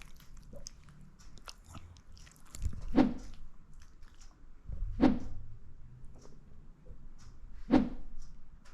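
Close chewing of something crunchy, with many small clicks and three louder crunches spaced about two and a half seconds apart.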